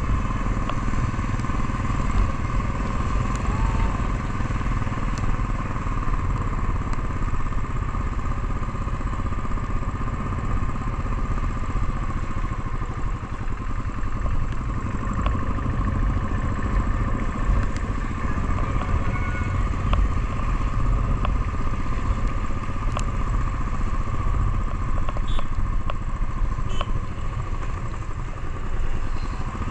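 Motorcycle engine running steadily while riding, under heavy wind rumble on the microphone.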